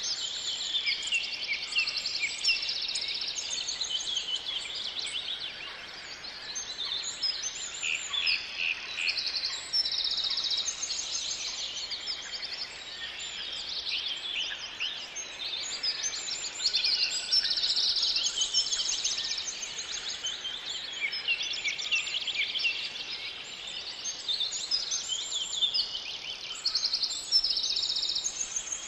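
Several songbirds singing at once, a dense, continuous run of overlapping high chirps and fast trills.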